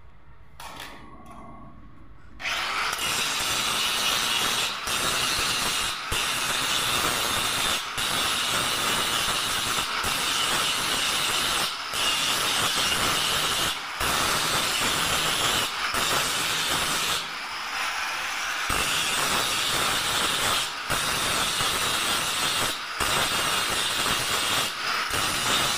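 Angle grinder grinding on the welded steel bars of a window grill, starting about two seconds in. The grinding breaks off briefly every couple of seconds, with a longer pause about two-thirds of the way through.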